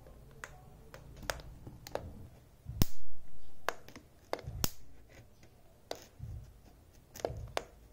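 Sharp snapping cracks, about a dozen at irregular intervals, as a screwdriver tip touches the electrified wire mesh of a mosquito racket and sparks across it. The loudest and heaviest crack comes just before three seconds in. The sparks show the racket's high-voltage circuit is working again after the repair.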